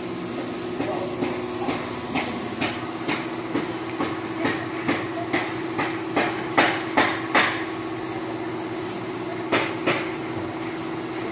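Hammer strikes, about two a second, growing louder over some six seconds, then two more blows after a short pause, over a steady machine hum.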